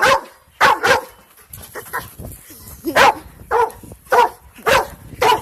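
A dog barking repeatedly: about eight short, loud barks in quick bunches, in excitement as it waits for a ball to be thrown.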